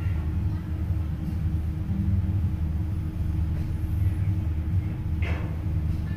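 A towboat's diesel engines running under way, heard from inside the wheelhouse as a steady low rumble with a constant hum. A brief higher sound comes about five seconds in.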